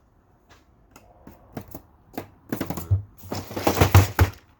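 Rapid clicking and rattling of small wiring parts and hand tools being handled, scattered at first and then a dense, loud clatter about three and a half seconds in.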